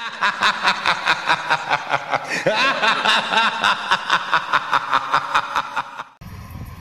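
Laughter in quick, even pulses, about four a second, which cuts off abruptly about six seconds in.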